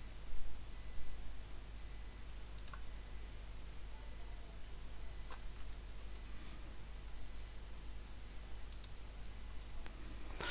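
Quiet room tone with a steady low hum, a few scattered computer-mouse clicks, and a faint high electronic beep repeating at even intervals.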